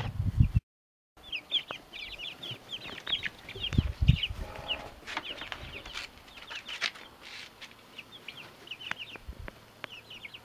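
A brood of young chicks peeping: many short, high chirps, each falling in pitch, in a busy overlapping stream, with a few light clicks among them.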